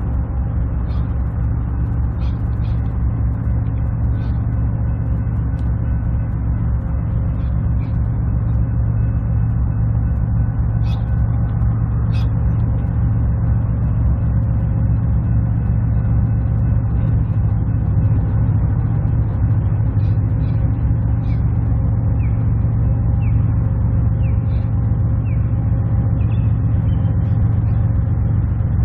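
Diesel freight locomotives running steadily, a deep even drone, with scattered faint clicks above it.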